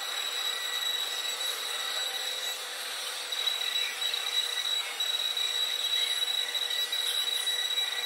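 Small L293-driven stepper motors of an Arduino mini CNC plotter whining and buzzing as they move a ballpoint pen over paper, writing letters. A steady high whine throughout, a little louder and rougher from about three seconds in.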